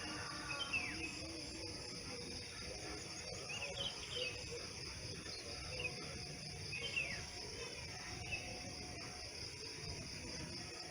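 Outdoor ambience: a steady high insect drone with a bird giving short falling chirps every second or two, over a low rumble.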